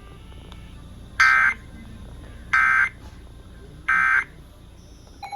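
Emergency Alert System end-of-message signal: three short, buzzy digital data bursts about a second and a third apart, the EOM code that closes a flash flood warning broadcast.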